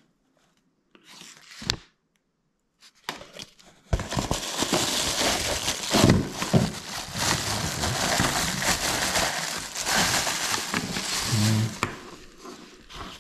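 A thin plastic wrapping bag crinkling and rustling without pause as it is pulled off a small electric fan heater. It starts about four seconds in, after a brief rustle and a click, and dies down near the end.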